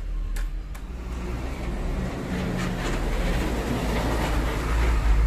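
Hino Ranger dump truck's diesel engine running under way, a deep steady rumble. Rushing road and wind noise builds up from about a second in. A few sharp ticks sound in the first second.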